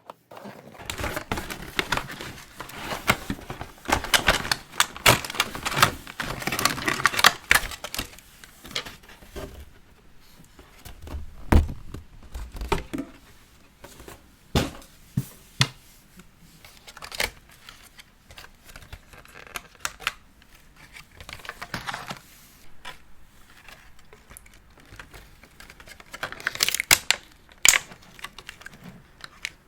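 Hands handling a boxed collector doll and its plastic packaging: a run of small clicks, taps and crinkles, busiest in the first several seconds, with a single heavier knock a little before halfway and another cluster of crinkling clicks near the end.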